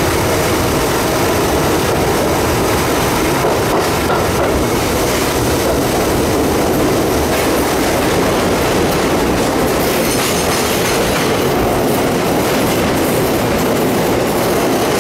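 R62A subway train running steadily through a tunnel, heard from aboard: loud continuous wheel-on-rail and motor noise with occasional knocks from the rails.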